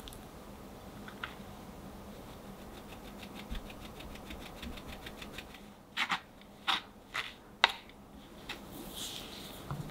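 Cocoa powder being sifted through a small mesh sieve. About three seconds in, a quick, even run of light ticks as the sieve is shaken, then several sharper taps on the sieve.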